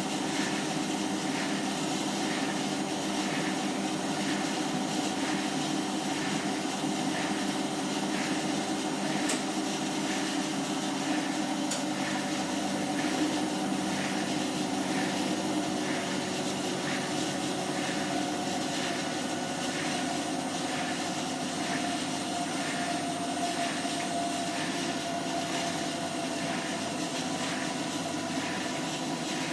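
Hotpoint washing machine spinning on a 30°C wash: a steady motor and drum hum with a regular squeaking, scraping sound repeating about three times every two seconds, a sign of something rubbing in the machine during the spin.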